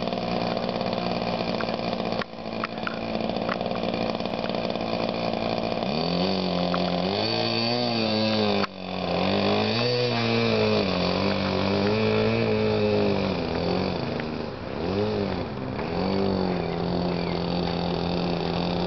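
Engine of a GP Ultimate 40 radio-controlled model biplane running on the ground as it taxis: steady at first, then from about six seconds in the throttle is opened and closed again and again, the pitch rising and falling, before it settles back to a steady lower idle near the end.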